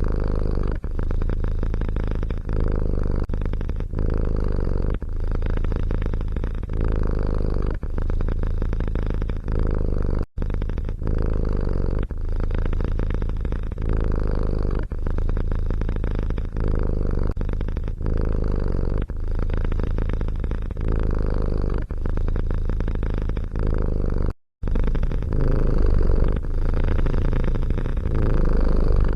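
Domestic cat purring loudly and steadily, broken twice by a momentary gap where the audio cuts.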